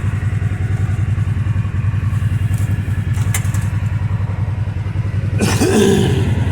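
Kawasaki Teryx side-by-side's engine idling with a steady, fast pulsing beat, swelling briefly louder near the end.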